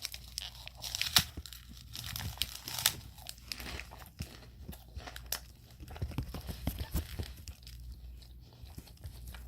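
Plastic snack wrapper being handled and torn, crinkling with irregular sharp crackles.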